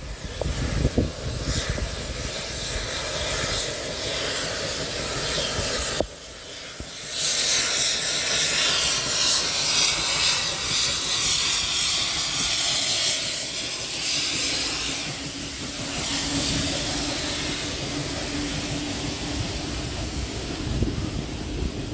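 Steam locomotive 5917 with a train: a steady rumble, then a loud hiss of escaping steam from about seven seconds in that eases after a few seconds, and a steady low hum joining near the end.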